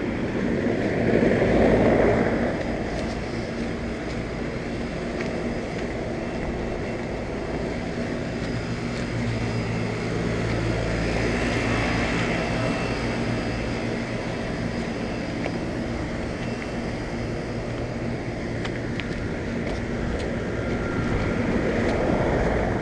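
Several outdoor central air conditioner condensing units running: a steady fan whoosh over a low compressor hum. It swells louder about two seconds in and again near the end, as units come close.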